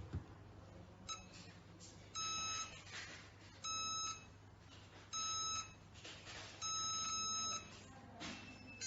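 Electronic cabinet lock beeping: three short beeps about a second and a half apart, then one longer beep.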